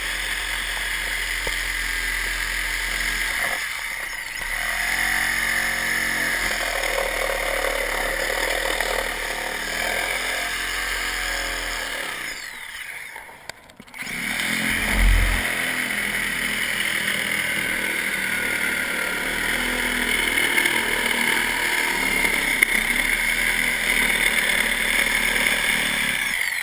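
Handheld reciprocating saw running and cutting into a panel of the dome, with a steady high-pitched whine. It stops briefly about halfway through and then starts cutting again.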